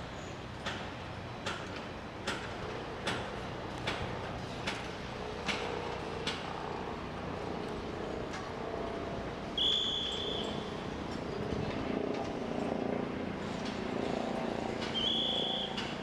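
Construction-site ambience: sharp clicks at an even pace of about one every 0.8 s for the first half, then a steady machinery hum, with two short high-pitched beeps, one about ten seconds in and one near the end.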